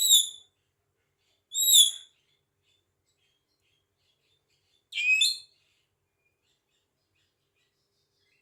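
Javan myna calling: three short calls, the first two alike about a second and a half apart, then a different, lower-starting call about five seconds in.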